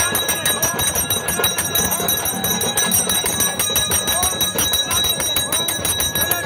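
Temple bells rung over and over, in a steady, continuous clangour, over the voices of a large crowd.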